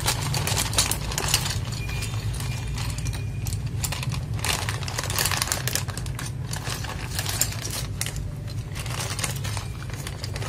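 Loose plastic keyboard keycaps clicking and rattling against each other as they are poured out of a plastic bag and sorted through by hand, with the bag crinkling.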